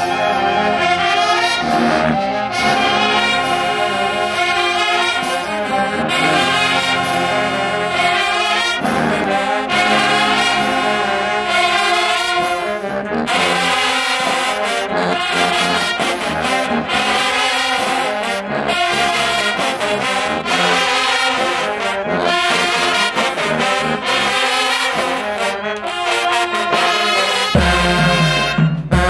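Marching band brass section (sousaphones, trombones, trumpets and mellophones) playing a loud tune together. A heavy low part comes in near the end.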